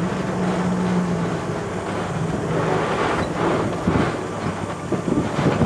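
Four-wheel-drive vehicle crawling along a rough dirt trail: a steady low engine drone with road noise, and a few knocks and jolts about four seconds in and near the end.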